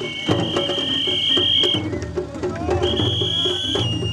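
Japanese festival float music: drums beating with sharp wooden clacks, and a long high piercing note held for about two seconds, then sounded again briefly near the end.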